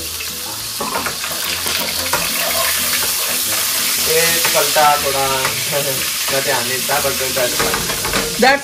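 Food frying in a hot pan, a steady sizzle, with a voice in the background in the second half.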